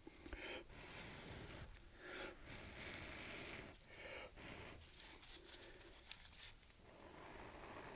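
Juniper bark being rubbed and pulled apart by hand to break up its fibres into tinder: faint, irregular tearing and rustling strokes, roughly one a second.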